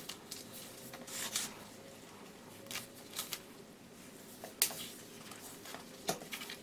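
Faint scattered rustles and short rubbing scrapes, as a strip of self-adhesive measuring tape is peeled from its backing and pressed down onto the jig.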